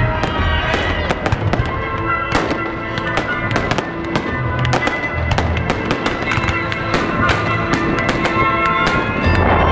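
Fireworks bursting in rapid succession, many bangs and crackles close together, over music with held notes and a low beat.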